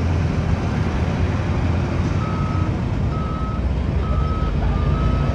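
Heavy earthmoving machine's engine running steadily with a low rumble. From about two seconds in, its reversing alarm sounds a single high beep about once a second, showing the machine is backing up.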